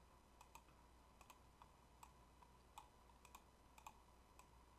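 Faint computer mouse clicks, about a dozen at irregular intervals, over near silence with a faint steady hum.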